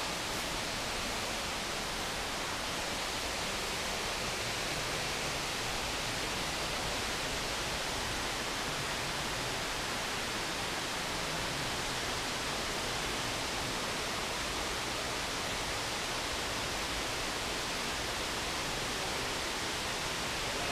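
Steady, unbroken rush of running creek water.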